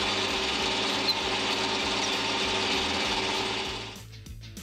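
Metal lathe running while a tailstock-held drill bit bores into the end of a spinning steel pin, making a hole to be tapped M5: a steady motor hum under a hissing cutting noise. The noise drops away about four seconds in.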